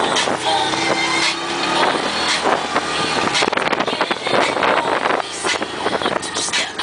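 Yamaha Rhino side-by-side's engine running as it drives over sand, heard from inside the cab, with frequent short knocks and rattles.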